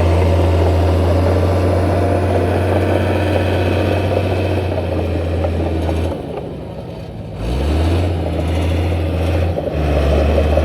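Diesel engine of heavy earthmoving machinery running with a steady low hum. About six seconds in it drops away briefly, then comes back with a rising pitch as it picks up again.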